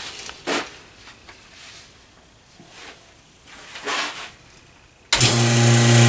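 A few faint knocks, then about five seconds in a vacuum pump switches on abruptly and runs with a steady hum, pulling vacuum on a lathe's vacuum chuck.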